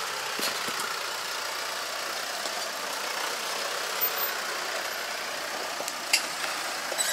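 Steady running noise of an open-top Jeep Wrangler Rubicon with a diesel engine, heard from on board as it crawls slowly over rough, dry off-road ground. A couple of sharp clicks or knocks come near the end.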